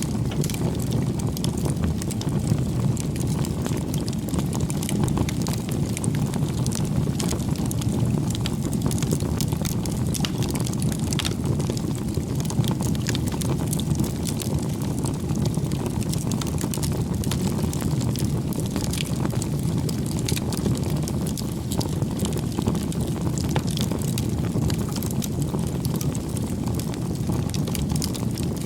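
Wood bonfire crackling and popping, with frequent small sharp snaps over a steady low rumble.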